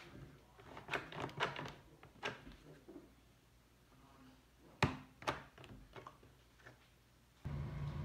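Light clicks and clacks of a bent metal strap and a plastic lever being fitted and worked on the handle of a Kobalt cordless circular saw, with two sharper clicks about five seconds in. Near the end a steady hum starts suddenly.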